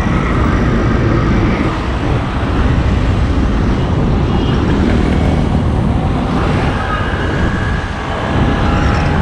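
Steady highway traffic passing close by: a truck, an auto-rickshaw and cars going past with engine and tyre noise and a constant low rumble.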